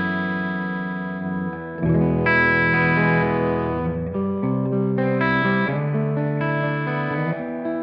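Electric guitar with humbucking pickups played through the Silver Llama vintage amp-sim plugin with its gain turned down for a clean tone: chords strummed and left to ring, changing every second or two.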